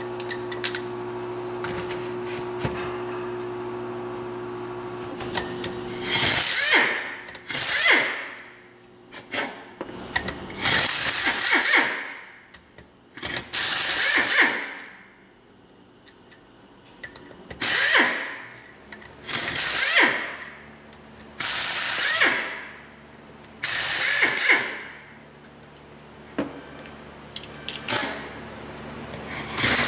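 Pneumatic impact wrench zipping out bolts on a Subaru EJ253 cylinder head, in about nine short bursts of a second or so each from about six seconds in. A steady hum runs before the first burst.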